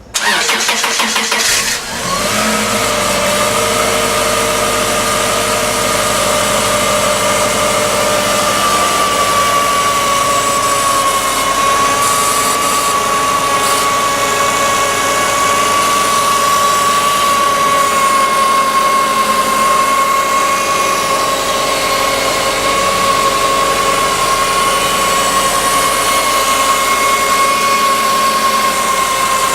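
Subaru flat-four engine cranked by the starter and catching about two seconds in, then idling with a steady high-pitched howl that eases slightly lower in pitch as it settles. The howl appeared after a timing belt change; the owner suspects the belt tensioner, an idler pulley bearing or the new belt's material.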